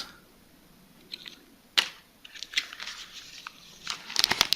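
Plastic MRE packaging being handled: a sharp tap a little under two seconds in, scattered light crinkles, then dense crinkling near the end.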